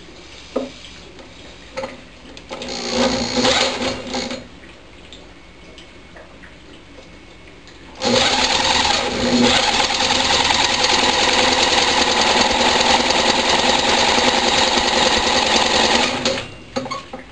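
Electric drill spinning a vertical-shaft lawnmower engine over from the top of its crankshaft: a short burst about three seconds in, then about eight seconds of steady cranking that cuts off suddenly. The engine, fed hydrogen (HHO) gas, does not catch and run.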